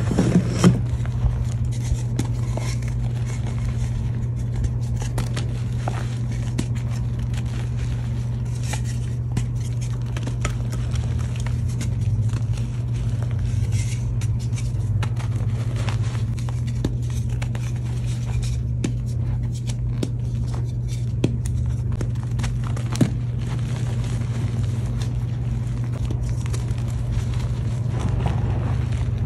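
Hands crushing and crumbling blocks of reformed gym chalk into loose powder: gritty scraping and crackling crunches, with a few sharper snaps. Under it runs a steady low hum.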